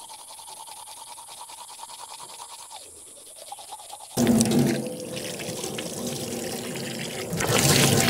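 Teeth being brushed, a toothbrush scrubbing with quick strokes; about four seconds in a tap comes on and water runs hard into a stainless steel sink, getting louder near the end as the water is used to rinse.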